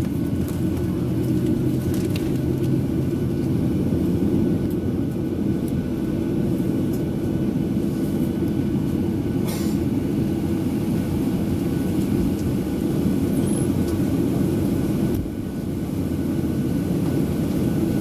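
Steady low rumble of cabin noise inside a Boeing 737-800 with its engines running on the ground. There is a brief hiss about nine and a half seconds in and a short drop in level about fifteen seconds in.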